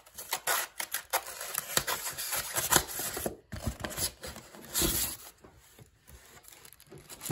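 Packaging being handled: a wrapped speaker pulled out of a cardboard box with foam inserts, its plastic bag crinkling and rustling against the cardboard. Irregular rustles and scrapes that grow quieter for the last couple of seconds.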